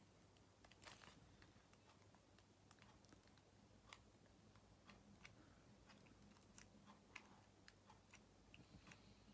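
Near silence with faint, irregular small plastic clicks and ticks from handling an opened correction-tape roller.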